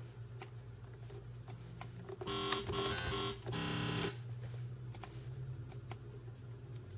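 Two short synth notes of the 'Modulated Metal' preset in FL Studio's Sytrus synthesizer, the first about two seconds in and lasting about a second, the second shorter, just after. Scattered mouse clicks and a steady low hum run underneath.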